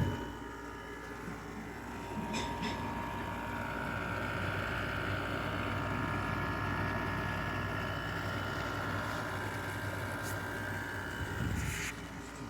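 LG 6,000 BTU window air conditioner running, its compressor and fan giving a steady hum. A steadier, higher whine joins in a few seconds in and fades near the end.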